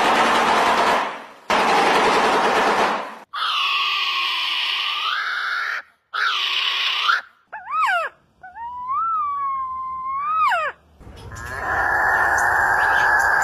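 Unusual bird calls, one clip after another: harsh, rasping screeches, then drawn-out pitched calls that bend in pitch, a pair of quick sweeping whistles, a clear whistle that dips and rises, and a long harsh call near the end.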